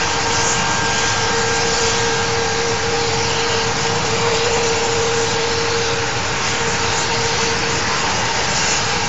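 Mil Mi-24 helicopter's twin turboshaft engines and rotor running on the ground: a loud, steady rush with a constant whine.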